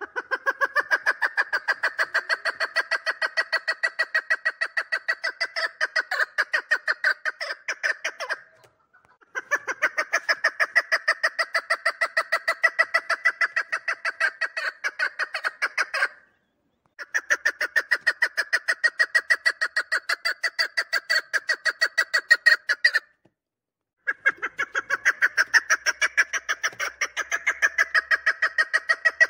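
Chukar partridge calling in long, fast runs of repeated clucking notes. There are four runs of about six to eight seconds each, broken by short pauses.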